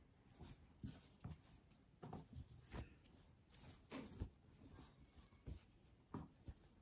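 Faint, irregular rustling of linen cloth being folded and smoothed by hand on a table, with soft taps as the fabric and hands meet the tabletop.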